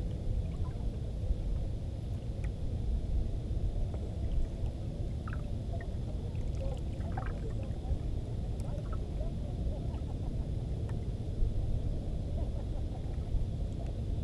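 Steady low rumble of wind and sea noise on an open fishing boat, with a few faint knocks.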